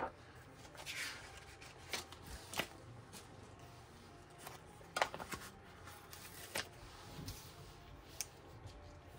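Paper sticker sheets being handled: rustling and crinkling as stickers are peeled off and pressed down, with scattered light taps and one sharper tap about halfway through.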